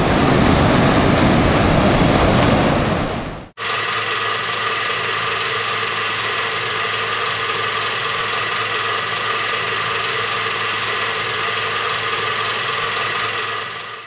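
Azov Sea waves washing onto a shell and pebble shore, a steady rushing noise that cuts off abruptly about three and a half seconds in. It is followed by a steady drone of several held tones that fades out at the end.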